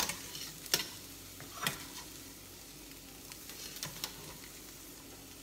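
Metal tongs stirring cauliflower rice in a stainless steel skillet and lifting it out, with a handful of sharp clicks and scrapes as the tongs hit the pan.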